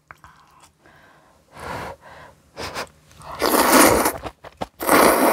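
Kalguksu noodles slurped into the mouth: a few soft sounds at first, then two long, loud slurps in the second half.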